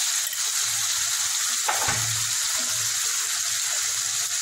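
Wet spice paste with tomato and a little water sizzling steadily in a kadai, a continuous frying hiss; one short knock about two seconds in.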